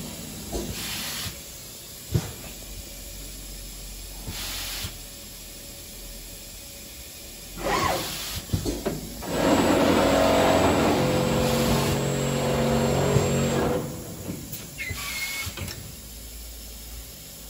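Morbidelli Powerflex S through-feed drilling machine at work: a steady mechanical hum with short hisses of compressed air from its pneumatic units. About ten seconds in, a louder spell of several seconds begins, with steady humming tones over noise, as its drilling units run.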